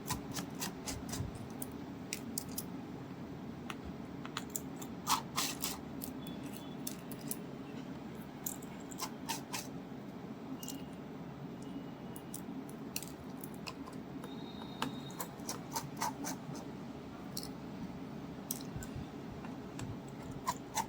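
Small tools and parts clicking, tapping and scraping on a mobile phone being opened up for repair, in irregular scattered clicks over a steady low hum.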